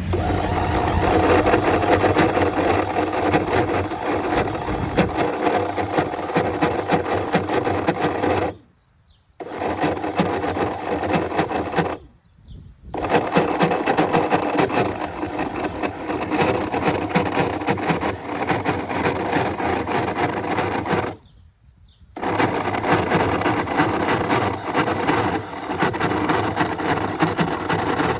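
Outboard motor's electric power trim/tilt pump running in long stretches, cutting out three times for about a second before running again as the motor is tilted. It sounds better coming down than going up, which the owner thinks may be low trim fluid or a failing trim pump.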